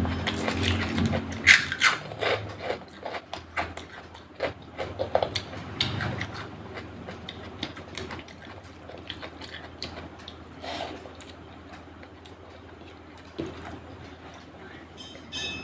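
Close-miked eating sounds: chewing with irregular crunches, mouth clicks and smacks, busiest and loudest in the first couple of seconds, then only now and then.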